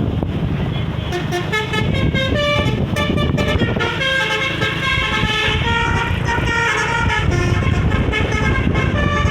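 Basuri V3 telolet horn on a bus playing a quick multi-note melody: a run of short horn notes stepping up and down in pitch, starting about a second in. A steady low rumble lies under it throughout.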